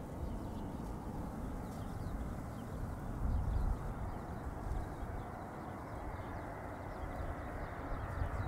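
Boeing 787-8 airliner on short final approach, its jet engines a steady distant rush over an uneven low rumble. Faint bird chirps sound above it.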